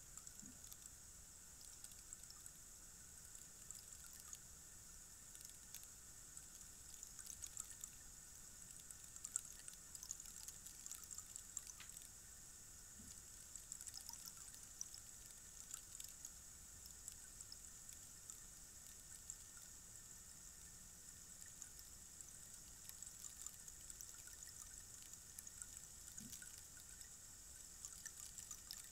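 Long rainstick standing on end, its fill trickling down inside in a faint, continuous patter of tiny ticks, like light rain.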